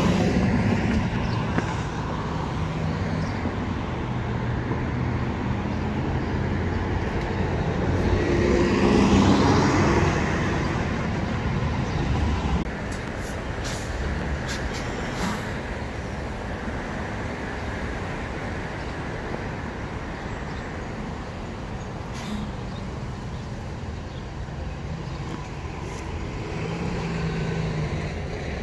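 City traffic with MTA transit buses passing at an intersection. Engine and road noise swells as vehicles go by about nine seconds in, and again near the end as a bus turns close by. A few short, sharp sounds come in the middle.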